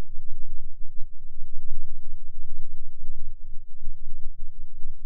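Background music: a held chord of many steady tones over a deep bass.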